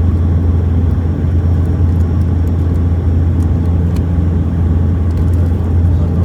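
Steady low rumble inside an airliner cabin as the jet rolls along the runway after landing: engine and rolling noise heard through the fuselage, with no sudden changes.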